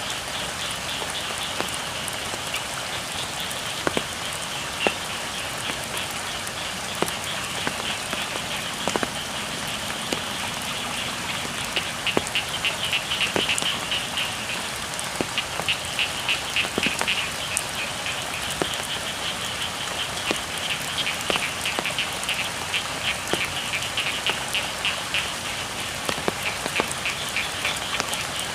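Steady rain falling on rice fields, with scattered sharper drop ticks. Frogs call in rapid pulsing trills, which grow louder from about the middle on.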